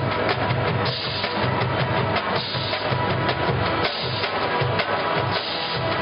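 College marching band playing, with held brass notes over a drumline and bass drums striking steadily.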